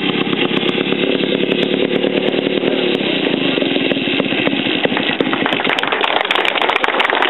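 Vintage chainsaw engine running steadily at speed as it saws through a log.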